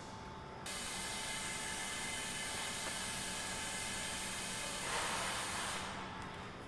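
A steady hiss that starts abruptly just over half a second in and cuts off about a second before the end, briefly louder around five seconds in.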